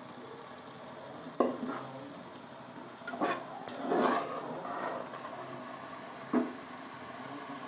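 Metal spoon stirring and scraping a thick spiced tomato masala in a kadai, knocking sharply against the pan four times, over a low steady sizzle of the masala slowly frying in oil.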